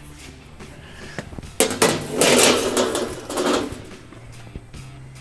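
A thin strip of 16-gauge sheet metal dragged over the steel slats of a plasma-cutting table, scraping and clattering. A few sharp metallic clanks come about a second and a half in, and the scraping runs until nearly four seconds in.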